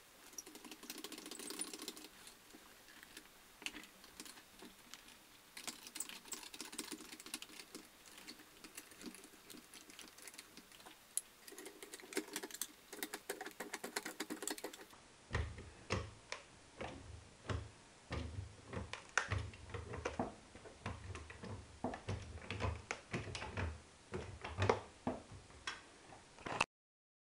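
Small hydraulic floor jack worked by hand under a sneaker: irregular clicks and knocks of metal and the shoe being handled. From about halfway there is a denser run of clicks with low thumps as the jack is worked.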